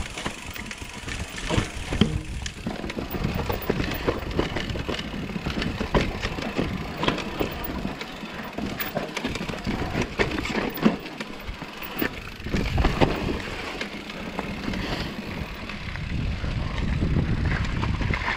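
Mountain bike riding fast down a dirt and rock trail: tyres rolling and crunching over the ground with a steady rumble, and the bike rattling and clicking over rocks and roots many times, with a few sharper knocks.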